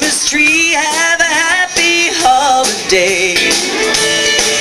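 Live band playing a song: a singer's voice holding notes with vibrato over acoustic guitar, electric guitar and drums.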